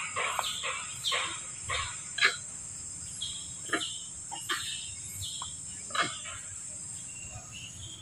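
Steady high-pitched drone of insects in the forest undergrowth, with rhythmic rustling about twice a second for the first two seconds and a few sharp snaps or clicks after that.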